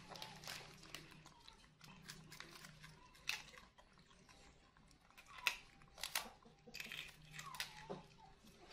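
Two young monkeys biting and chewing crisp rice crackers: scattered sharp crunches with quieter chewing between them.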